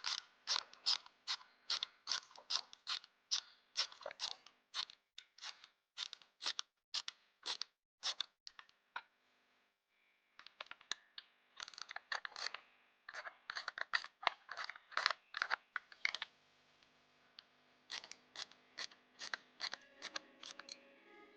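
Hand ratchet wrench running in a transmission mounting bolt, clicking in quick strokes about three a second, with two short pauses.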